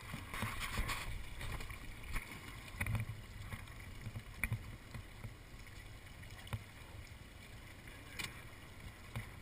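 Low rumble and wind noise aboard a fishing boat on open water, with scattered small knocks and clicks.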